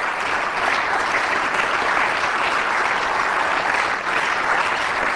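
Applause from many people clapping steadily, with no break and no rise or fall.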